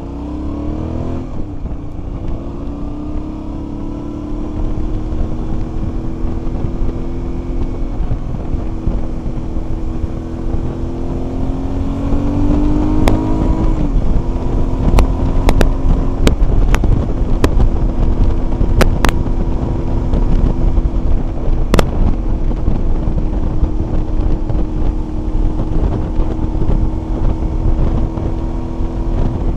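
Motorcycle engine accelerating through the gears: its pitch rises, drops at a shift about a second in and again around fourteen seconds, then holds steady at cruising speed. Heavy wind buffets the microphone throughout, and a few sharp clicks come in the middle.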